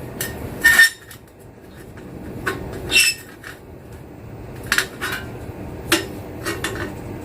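Galvanized steel sheet being handled and worked, giving several sharp metallic clanks a second or two apart, the loudest a little under a second in and at about three seconds.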